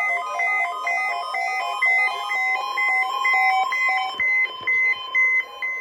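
Weather radio receivers set off by the NOAA weekly test: alert beeps in a quick repeating pattern at several pitches, joined about two and a half seconds in by the steady 1050 Hz NOAA Weather Radio warning alarm tone.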